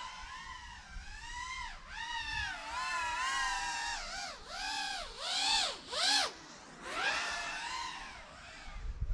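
GEPRC FPV drone's motors and propellers whining in flight, the pitch rising and falling with the throttle. Midway there are several quick dips and swells, and it is loudest about five and six seconds in.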